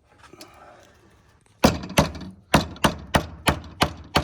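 Hammer blows driving a tool into an Air Lift V2 air manifold to knock out a fitting: after some faint handling, a steady run of sharp metallic strikes starts about a second and a half in, roughly three a second.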